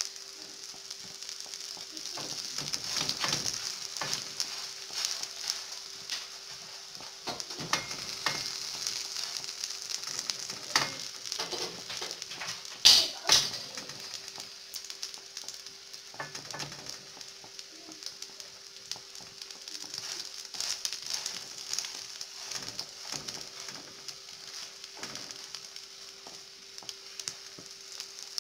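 Oil and butter sizzling steadily under a layered flatbread frying in a pan, with scattered taps and knocks and two sharp clicks about halfway through. A faint steady hum runs underneath.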